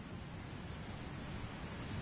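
Steady, soft hiss of background noise with no distinct events, growing slightly louder.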